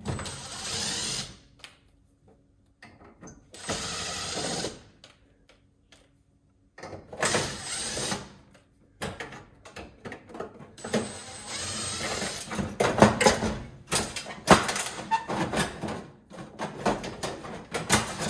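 Cordless drill-driver running in three short bursts of about a second each, backing out screws. Then a long run of clicks and clatter as parts are handled and pulled apart.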